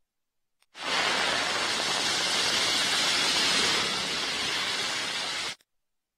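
A steady, even hiss with no clear pitch. It cuts in abruptly about a second in and stops just as suddenly about a second before the end.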